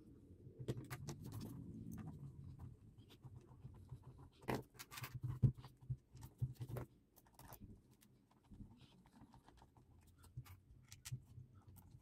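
Plastic housing of a cordless drill battery pack being handled and fitted together by hand: scattered light clicks and knocks of plastic, loudest a few seconds in.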